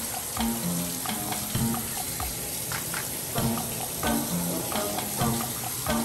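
Shower water spraying steadily from the shower head, a continuous hiss, under background music with a steady beat.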